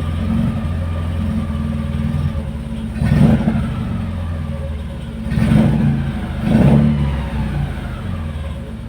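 Mitsubishi 4G63 inline-four engine idling roughly, misfiring, with the engine sound surging up briefly three times.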